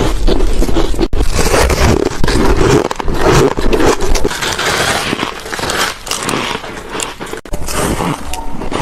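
Close-up crunching of freezer frost being bitten, chewed and squeezed by hand, a dense crisp crackle. It breaks off abruptly about a second in and again near the end, where one clip cuts to the next.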